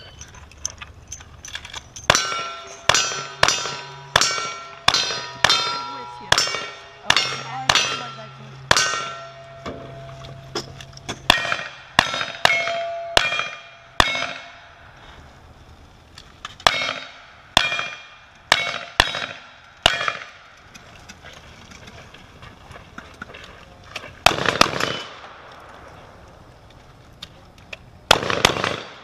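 A fast string of about twenty gunshots, roughly two a second in bursts, each followed by the ring of a hit steel target. This is a cowboy action shooting stage. After a pause, two heavier, longer shotgun blasts come near the end.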